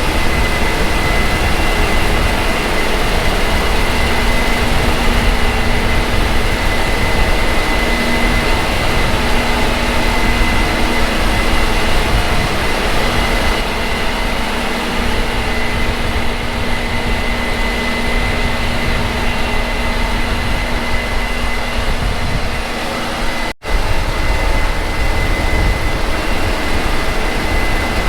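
Combine harvester running steadily at work in wheat, a continuous machine drone with a steady high whine over it. A short break about three-quarters of the way through, where the footage is cut.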